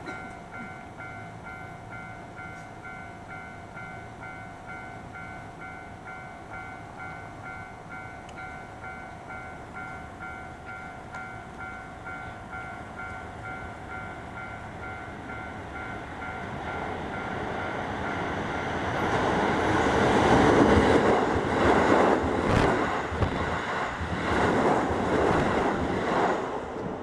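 A Japanese level-crossing warning bell rings with a steady repeating electronic tone while a Keisei 3000 series electric train approaches, growing louder. About two-thirds of the way in the train passes the crossing at speed, around 80 km/h, with a loud rush and repeated clacks of wheels over the rail joints that drown out the bell.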